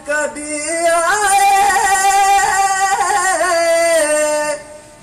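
A man singing an Urdu devotional tarana solo into a microphone: one long phrase of held notes with ornamented turns. It fades out about four and a half seconds in.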